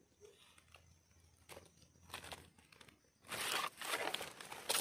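Dry leaf litter and twigs rustling and crunching under handling and movement on a forest floor: a few faint crackles at first, then dense, loud crinkling from about three seconds in.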